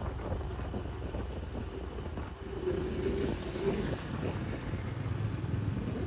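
Road traffic rumbling steadily, with wind on the microphone; a passing engine's hum rises out of it for a second or so in the middle.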